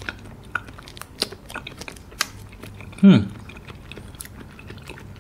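Close-miked mouth sounds of eating konjac jelly: soft, wet chewing clicks throughout. About three seconds in comes one short, loud squeak that falls steeply in pitch.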